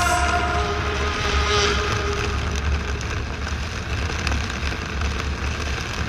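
Steady low rumble and noise of a ship underway. A tail of music fades out during the first two seconds.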